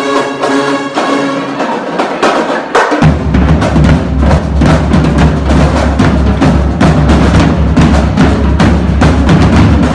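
High school marching band with brass and drumline. The brass holds chords, and about three seconds in the drumline and bass drums come in with a fast, steady beat under the band.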